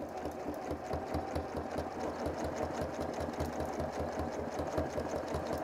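Sewing machine free-motion quilting at a deliberately slow speed, the needle stitching in an even, steady rhythm. Run this slowly, it makes large stitches and loops that are not smooth.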